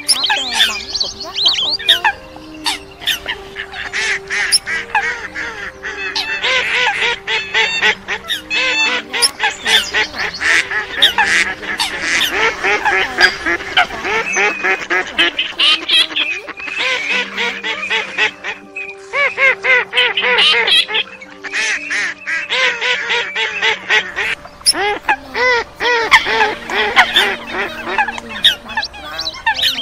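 A dense chorus of waterfowl calls from a bird-trapping lure track mixing Eurasian coot, wild duck, teal and lesser whistling duck: many short calls overlapping without a break. Some steady low held tones run beneath.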